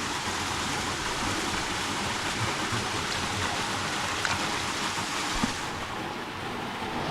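Waterfall pouring into a pool, a steady, even rush of falling water.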